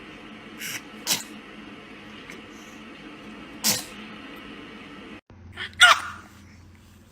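Baby sneezes: a faint one and then two short, sharp sneezes in the first four seconds, then a louder sneeze with a bit of voice in it near six seconds.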